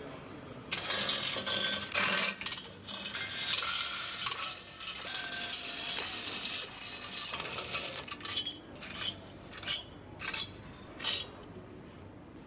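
Hand tools and small metal parts clinking and rattling against an aluminium V8 engine block during assembly. Near the end come about five separate sharp metallic clinks, each with a short ring.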